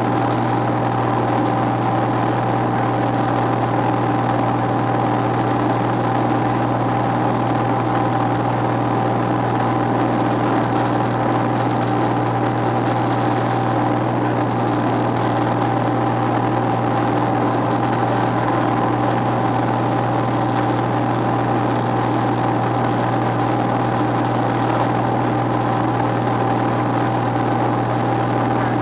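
Single-engine propeller aircraft's piston engine and propeller droning steadily in flight, heard from inside the cockpit.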